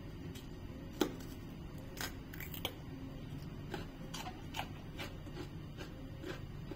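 A raw cucumber being bitten and chewed close up: a sharp crunch about a second in, then irregular crunchy clicks of chewing.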